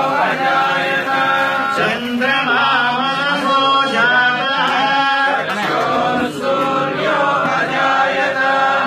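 Several male voices chanting a devotional hymn together in a steady, continuous melody.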